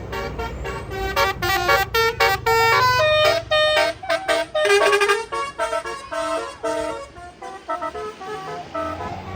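Bus telolet horn, a Basuri multi-trumpet air horn, playing a quick melody of short tooting notes over the rumble of the bus engine. The notes grow fainter about seven seconds in.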